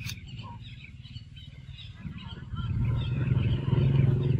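Small birds chirping throughout. A little over halfway in, a low, steady engine hum comes in and grows louder, like a motor vehicle approaching, and becomes the loudest sound.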